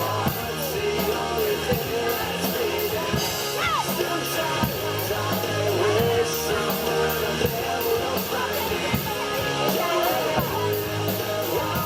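Music with a singing voice over a steady beat, one note held for a second or two in the middle.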